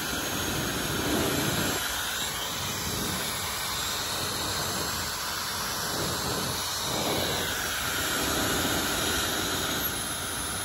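Dyson Supersonic hair dryer running on its highest fan setting: a steady, strong rush of blown air.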